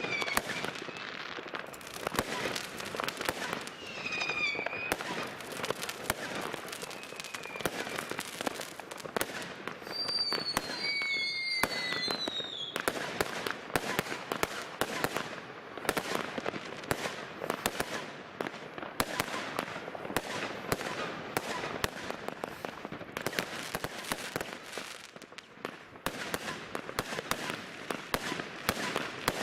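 New Year's Eve fireworks going off densely: a continuous run of rapid bangs and crackles from firecrackers and rockets. Several short whistles falling in pitch cut through in the first half, the longest around 10 to 12 seconds in.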